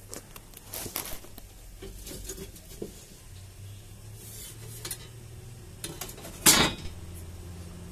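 Sheet-metal floor-pan repair panel being handled against a car's floor: light metallic taps and scrapes, then one loud clank near the end.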